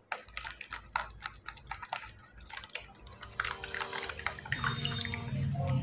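Series of small sharp clicks from a plastic bottle and cap being handled and twisted open, then liquid poured from the bottle into a cup. Background music with a steady pitch comes in near the end.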